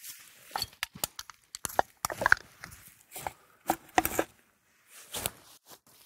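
Irregular crackling and rustling of dry fallen leaves, with scattered small knocks, as someone crouches and rummages through litter on the forest floor.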